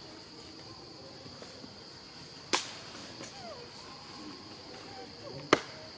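Two sharp knocks about three seconds apart, as macaques clamber on a metal ladder, over a steady high-pitched insect drone.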